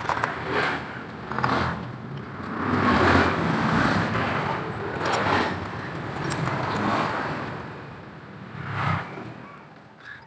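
Road traffic, motor vehicles going by, the sound swelling and fading several times. Light metallic clicks come from the scooter's CVT parts being fitted by hand.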